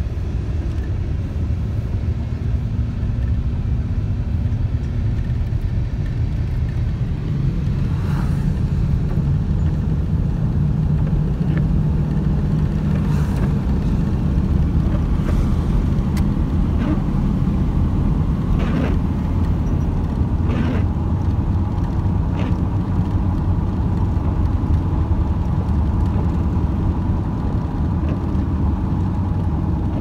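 Freight cars of a manifest train rolling past with a steady low rumble, and occasional sharp metallic clanks from the wheels and couplings, irregular and mostly in the middle stretch.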